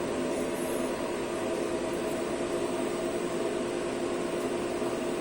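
CNC lathe running steadily with its spindle turning, a constant hum with several steady tones, while the turret is jogged slowly in X toward the workpiece, before the tool starts cutting.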